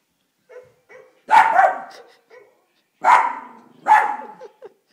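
Small dog barking: three loud, sharp barks, the first about a second in and two more close together near three and four seconds in, with a few faint short sounds between.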